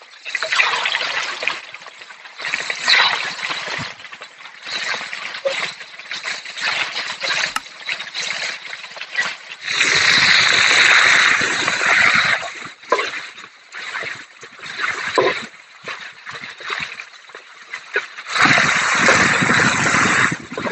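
Prawns frying in hot oil, a steady sizzle and splatter that swells louder about ten seconds in and again near the end.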